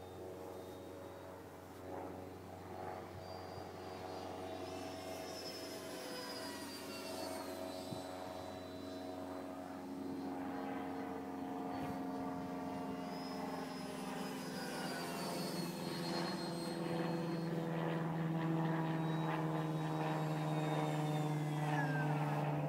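Radio-controlled F-18 model jet's 70 mm electric ducted fan, a steady multi-tone whine that grows louder as the model flies closer.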